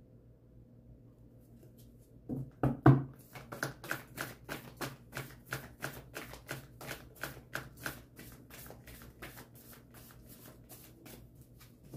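A tarot deck being overhand-shuffled by hand. After a quiet start come a few louder knocks about two and a half seconds in, then a steady run of card slaps, about three a second, growing softer near the end.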